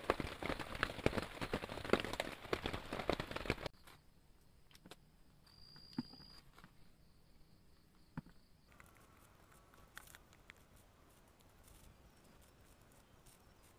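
Rain pattering densely with a crackling sound for the first few seconds, then cutting off abruptly. Quiet follows, with a few scattered small clicks and one short high tone.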